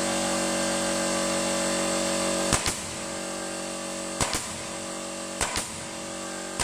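A pneumatic nail gun firing nails into a wooden beam three times, each shot a sharp double crack, about one and a half seconds apart. Under the shots a brushless oil-free air compressor hums steadily and drops quieter about two and a half seconds in.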